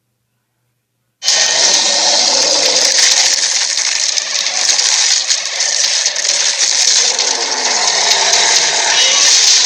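Fantasy-creature sound effect: a loud, harsh, rasping buzz with a fast flutter that starts suddenly after about a second of silence and then runs on steadily.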